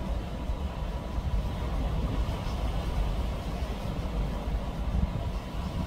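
Steady low rumble of a boat under way across choppy water, with gusty wind noise on the microphone.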